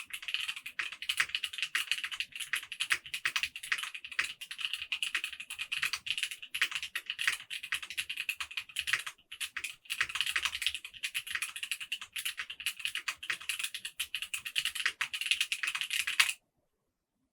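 Steady fast typing on a mechanical keyboard with factory-lubed Kailh Xuan tactile switches in a Mode Envoy, a dense patter of key presses and bottom-outs. It pauses briefly about halfway through, then resumes and stops abruptly about a second before the end.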